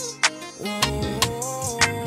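Background music: a beat with sustained melodic notes and sharp drum hits roughly every half second.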